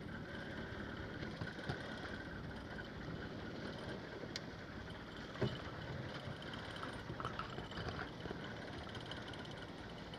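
Steady noise of a fishing boat at sea, with a few short knocks; the loudest is about five and a half seconds in.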